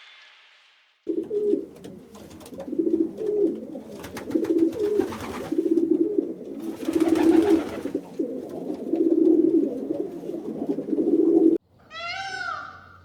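Pigeons cooing, a run of low repeated coos with a few clicks mixed in, stopping abruptly. Near the end a cat meows once.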